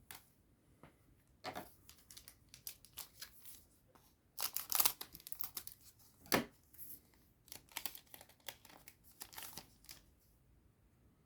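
A foil trading-card booster pack being torn open and its wrapper crinkled: a run of short rustles and rips, loudest about four and a half seconds in.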